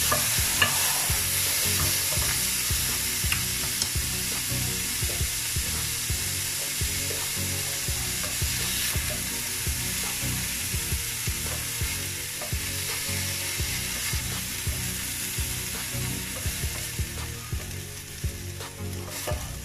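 Diced chicken sizzling as it fries in oil in a nonstick pan, nearly cooked, with a spoon stirring and scooping and small clicks of the utensil against the pan. The sizzle fades toward the end as the pieces are lifted out.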